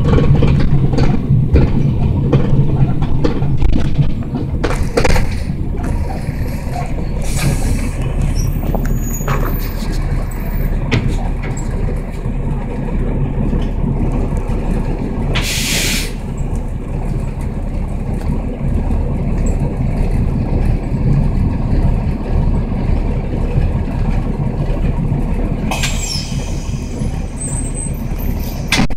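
Transit bus heard from inside the passenger cabin: the diesel engine runs with a steady low rumble, easing off after about four seconds as the bus comes to a standstill at a stop. About halfway through there is a short, loud hiss of compressed air from the bus's air system, with fainter hisses before and near the end.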